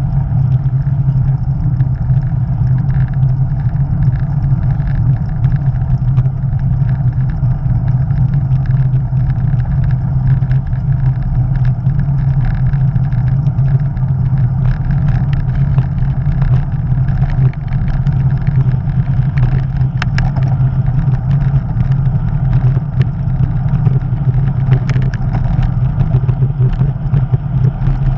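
Wind buffeting a bicycle-mounted action camera's microphone at riding speed, a loud steady rumble, mixed with the road noise of the bicycle's tyres on coarse tarmac and scattered light ticks.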